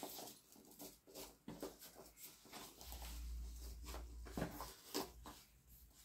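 Faint handling sounds of small items being packed back into a subscription box: scattered light taps, clicks and rustles at an uneven pace, with a low rumble in the middle.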